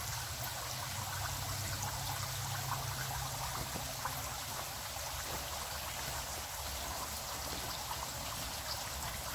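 Steady running and trickling water in fish-farm vats, with a low steady hum underneath.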